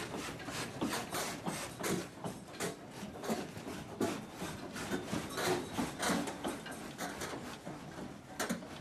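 Irregular clicks, knocks and rattling of hard objects in an office, a few each second.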